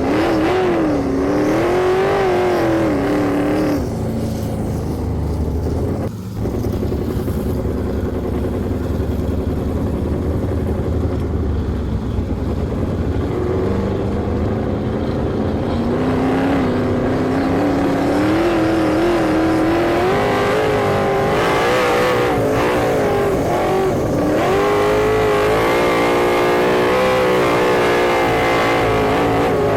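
Sprint car engines running at racing speed, their note rising and falling again and again as the cars accelerate and back off.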